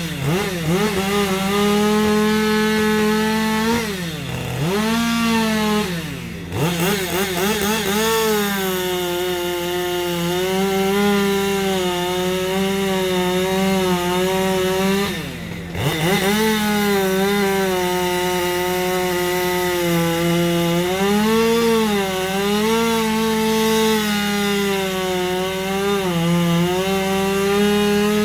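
Chainsaw running at high revs and cutting wood, its pitch wavering under the load of the cut, with the engine speed dropping sharply and coming back up three times.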